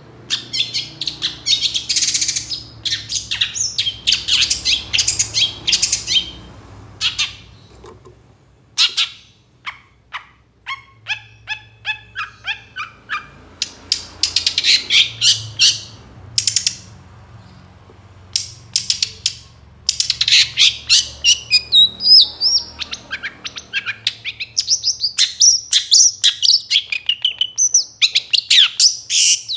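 Long-tailed shrike (cendet mabung) singing loudly in bursts of rapid, high chattering notes, with short pauses between bursts. About eleven seconds in it gives a run of evenly spaced notes, and from about twenty seconds on it sings varied sliding notes. A faint steady low hum runs underneath.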